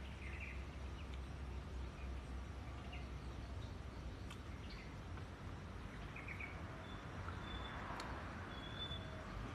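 Short bird chirps now and then over a steady low rumble of outdoor background noise, with one sharp click about eight seconds in.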